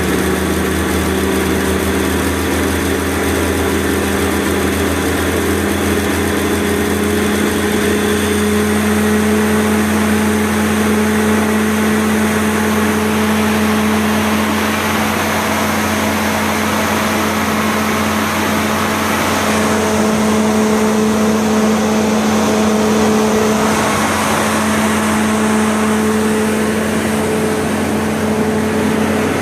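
Onan 30EK natural-gas generator set running steadily at constant speed, a steady engine hum with a strong low tone.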